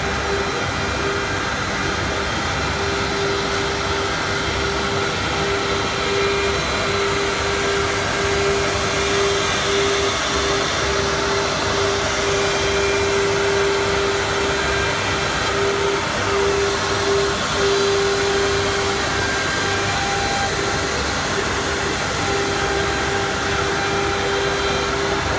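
Automatic-loading CNC router cutting machine running: a steady high whine with a slight flutter rides over a continuous rushing machine noise.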